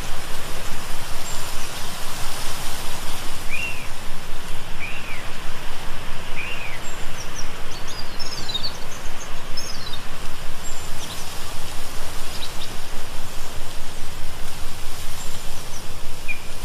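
Small birds chirping now and then over a loud, steady rushing noise. There are three separate chirps, then a brief flurry of quicker, higher chirps.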